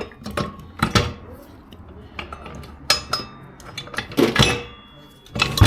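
Metal motorcycle parts clinking and knocking as the rear wheel, axle spacers and shims are taken off and set down: several sharp, irregular knocks, some ringing briefly.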